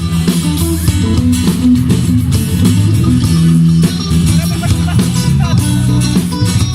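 Band music with guitars, bass and drums playing.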